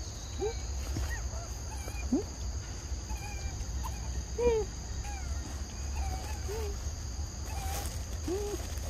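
Steady high drone of forest insects, with short arching animal calls every second or so over a low rumble.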